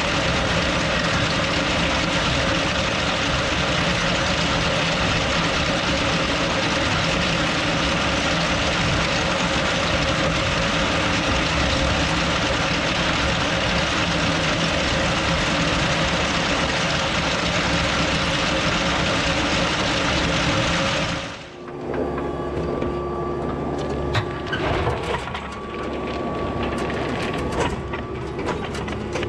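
Rock picker converted from a potato digger, running behind a tractor with its chain bed sifting soil and stones: a loud, steady mechanical clatter. It cuts off suddenly about two-thirds of the way through, giving way to a quieter tractor engine running with a few knocks.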